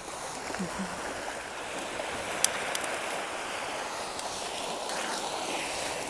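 Steady wash of sea waves on the shore, with a sharp click about two and a half seconds in.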